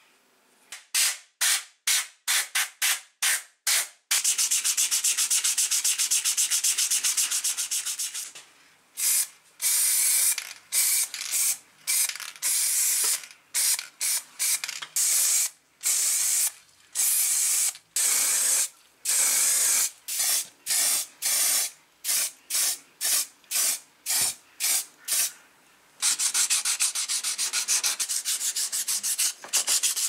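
Sandpaper rubbed by hand against a part in repeated back-and-forth strokes: separate strokes about two a second, breaking into quicker continuous scrubbing for a few seconds early on and again near the end.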